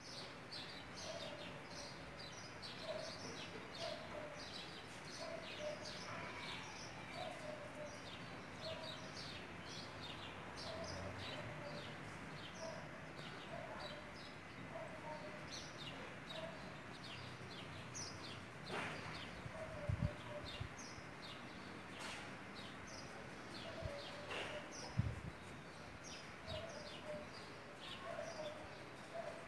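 Small birds chirping and twittering throughout, with a lower short call repeated roughly once a second or so. Two dull thumps about two-thirds of the way in and again near the end.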